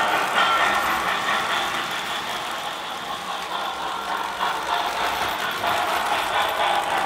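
Lionel MPC Great Northern model steam locomotive, fitted with RailSounds, running under power: electronic steam-engine sounds from its speaker mixed with the steady rattle of its wheels and the freight cars on the three-rail track.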